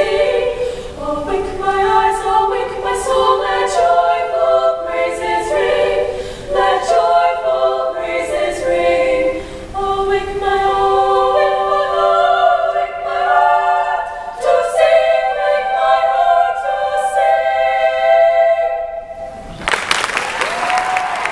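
Women's choir singing a cappella in close harmony, ending on a long held chord. The chord cuts off near the end and an audience breaks into applause.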